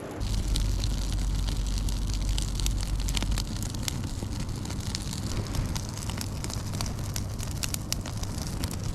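Campfire crackling with many quick sharp pops, over a low wind rumble on the microphone that eases after about three seconds.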